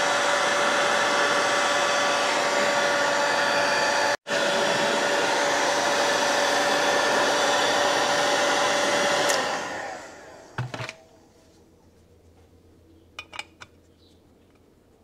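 Grizzly heat gun blowing steadily with a constant whine, heating the aluminium crankcase's bearing boss so the bearing will slip in. It breaks off for an instant about four seconds in, is switched off about two-thirds of the way through and spins down, and a few light clicks follow.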